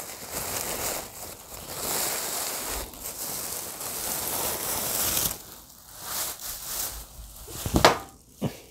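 Clear plastic bag and white packing wrap rustling and crinkling as they are handled and pulled open, loudest for the first five seconds, then a single sharp knock about a second before the end as something is set down on a table.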